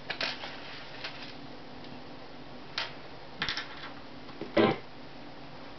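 Scattered clicks and taps from the buttons of a jWIN JX-M122 portable radio being pressed, the loudest about four and a half seconds in, over faint background music.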